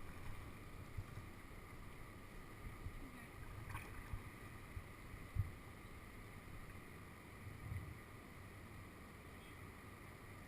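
Quiet low rumble of wind on the microphone, with faint water movement around a kayak. There is one soft thump about five seconds in.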